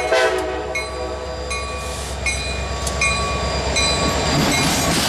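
EMD diesel locomotive passing close by with a steady low rumble; its horn cuts off just after the start. A bell rings about once every three-quarters of a second over the rumble.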